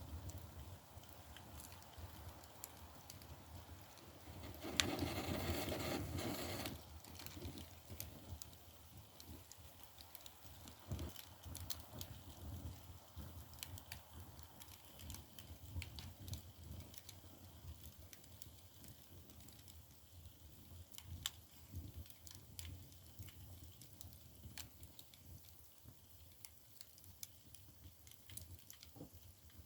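Split bamboo firewood burning in an agungi fire-hole, with a low rumble and scattered sharp crackles and pops. About five seconds in, a louder rasping noise lasts about two seconds.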